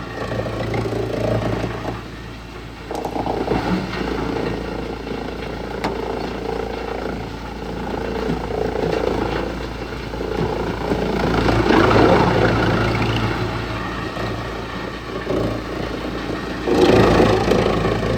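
Large wood chipper's engine running steadily. It surges louder about two-thirds of the way through and again near the end.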